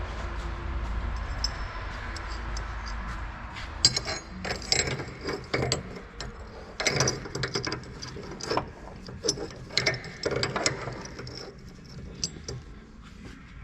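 Hand tools working on metal car parts: a run of irregular clicks and clanks starting about four seconds in, over a low steady hum that fades away at about the same point.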